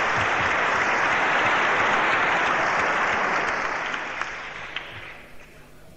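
Large audience applauding, a dense, even clapping that fades away over the last two seconds.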